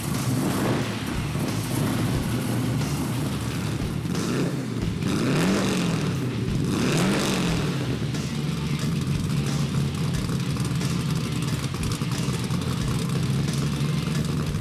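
Supercharged small-block V8 of a 1932 Ford roadster, with a Weiand blower and two four-barrel carburettors, idling steadily through side pipes. It is blipped twice, at about five and seven seconds in, each rev rising and falling back quickly.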